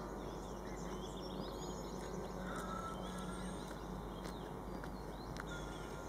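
Birds chirping and calling, with short high chirps scattered throughout, over a faint low steady drone from a diesel locomotive still far off down the line.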